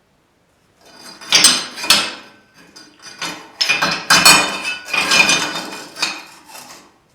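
Metal pieces knocking and clattering against each other several times, with a short metallic ring after the louder hits.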